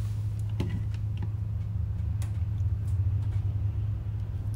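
Steady low background hum, with a few faint, light clicks in the first half.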